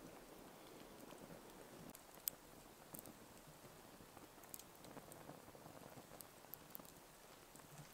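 Near silence: faint background hiss with a few scattered soft clicks and ticks.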